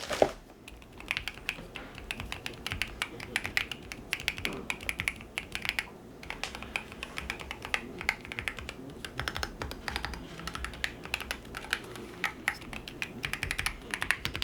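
Typing on a new Keychron Q6 HE, a full-size, fully metal keyboard with Hall effect magnetic switches: an irregular, steady run of key presses clicking one after another.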